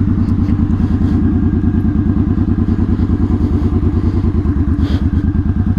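Motorcycle engine running at a steady, unchanging speed with an even, rapid beat.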